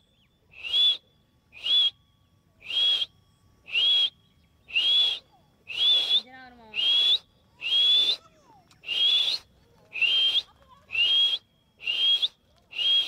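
A person whistling to call a dog to come. Short, breathy whistles, each rising at the end, are repeated steadily about once a second, some thirteen times.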